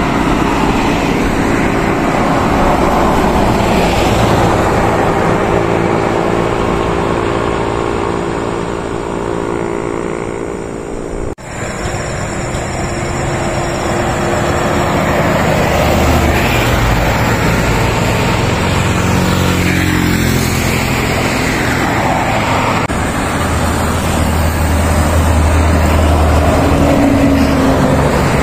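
Diesel buses and other highway traffic passing close by, engine hum and tyre noise swelling and fading as each vehicle goes past. One engine note falls in pitch as it passes.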